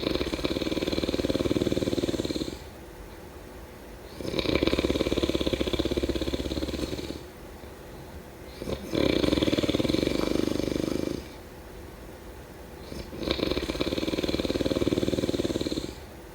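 A person snoring: four long, rattling snores, each lasting two to three seconds, coming a little over four seconds apart.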